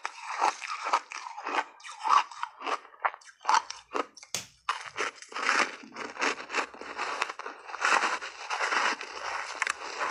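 Ice chunks being bitten and chewed close up: a quick run of crisp crunches, with one sharp crack a little before halfway, then denser, almost continuous crunching.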